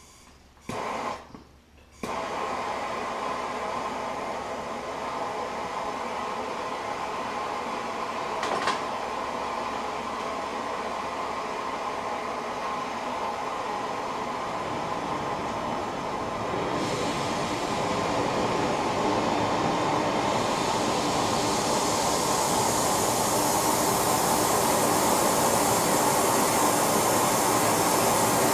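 Heating equipment for melting and casting metal, switched on about two seconds in and running with a steady rushing noise while it warms up. It grows louder and brighter after about seventeen seconds, with a single click in between.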